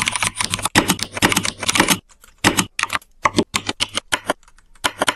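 Simulated mechanical-keyboard keystrokes played by the Mechvibes software as keys are typed: a fast flurry of clicks for about two seconds, then separate keypresses a few a second.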